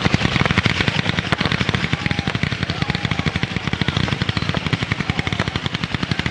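Fireworks crackling: a dense, continuous rattle of many small rapid pops from crackling-star effects.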